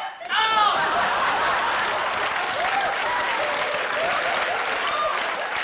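A short shout at the start, then a live audience applauding steadily.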